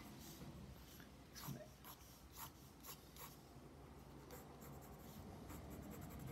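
Pencil scratching on sketchbook paper in a series of short, quick strokes as lines are sketched in. The strokes are faint.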